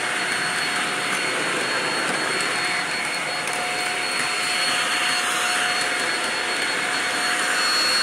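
Shark DuoClean stick vacuum running steadily while pushed across a tiled floor: an even rushing hiss with a steady high whine.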